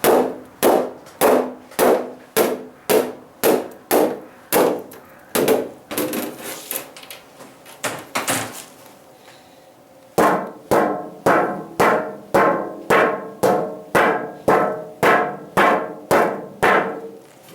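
Carbon-fibre products being struck over and over in a strength test: sharp knocks about two a second for some eight seconds, the later ones weaker. After a short pause, a second run of knocks rings with a clearer pitch.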